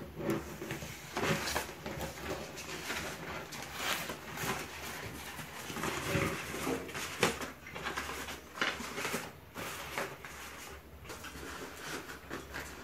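Handling noise as artificial foam flowers and leaves are pushed into a fibre-filled vase: irregular rustles, rubs and light taps.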